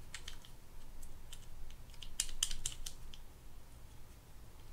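Light metallic clicks and taps of a small screwdriver tip working a stuck part loose inside a spinning reel's body, with a quick cluster of clicks about two seconds in.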